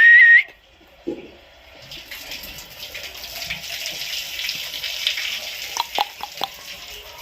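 Steady hiss of running or spraying water from about two seconds in, with a few sharp clicks near the end. A brief, loud high-pitched whistle-like call rising in pitch opens it.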